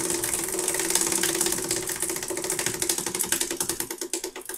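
A spinning prize wheel's pointer clicking rapidly against the pegs, the clicks gradually slowing as the wheel spins down.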